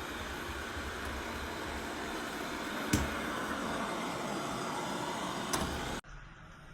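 Coredy R500+ robot vacuum running, a steady whirring of its suction motor and brushes, with two short knocks about three and five and a half seconds in. The sound cuts off abruptly about six seconds in, leaving only a faint hum.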